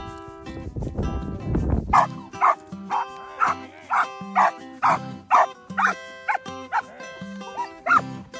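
Belgian Malinois barking over and over, about two barks a second, starting about two seconds in, over background music.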